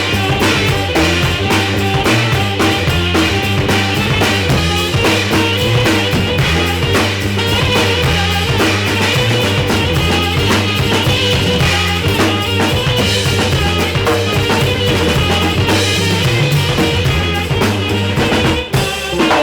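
Live band music driven by a drum kit, with bass drum, snare and rimshots beating steadily over sustained low bass notes. The level drops briefly near the end.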